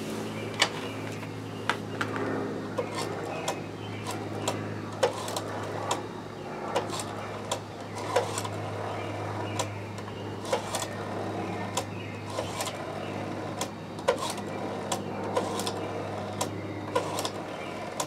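Rotary-dial desk telephone being dialled: the finger wheel is turned to the stop and whirs back on its spring, digit after digit, with many sharp clicks from the dial and the handset. A steady low hum runs underneath.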